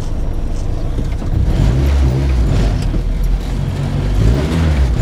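Honda Civic engine running as the car drives, its pitch rising and falling with the throttle, over low road noise.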